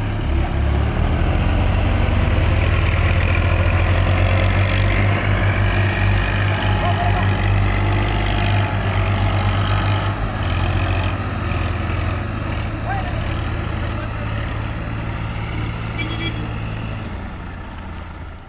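Two diesel tractor engines running under heavy load as one tows a Massey Ferguson tractor out of deep paddy-field mud. The steady low engine note fades near the end.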